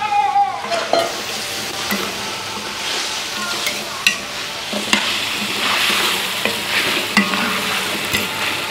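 Chicken pieces frying in a large metal wok with a steady sizzle, while a metal ladle stirs and scrapes through them, with a sharp click of the ladle against the wok every second or so.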